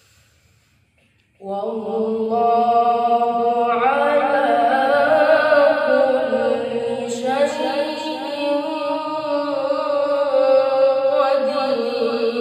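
A young boy reciting the Qur'an in melodic tilawah style, in long ornamented held notes. The recitation begins about a second and a half in, after a brief pause.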